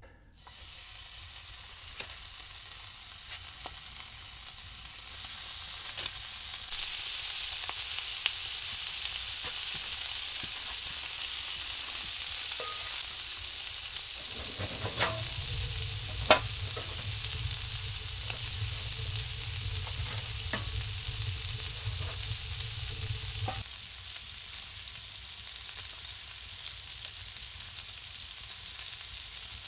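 Food sizzling as it fries, a steady hiss with scattered small pops and one sharper pop near the middle. It grows louder about five seconds in and drops back a few seconds before the end.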